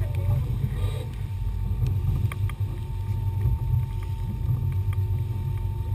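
Twin outboard motors running with the boat under way, a steady low drone mixed with wind noise on the microphone.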